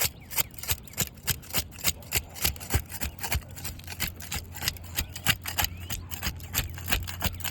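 Stainless steel putty knife being worked under CertainTeed asphalt roof shingles to break their seal strips: a quick, uneven run of sharp scraping clicks, about three or four a second, as granules are knocked off. A faint low steady hum lies underneath.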